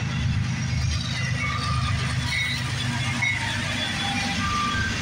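Diesel locomotives of a CSX freight train passing at close range: a steady low engine rumble mixed with wheel and rail noise, and a few faint short high tones.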